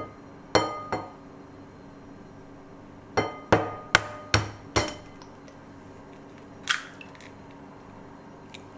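Eggshell tapped against the rim of a glass mixing bowl to crack it: sharp clinks, each with a brief glassy ring. Two come near the start, then a quick run of five, then one more near the end.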